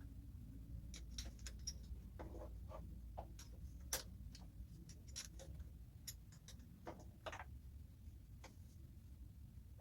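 Scattered light clicks and taps, irregular rather than an even tick, with one sharper click about four seconds in, over a low steady background rumble: the small handling sounds of repair work on an electric motor.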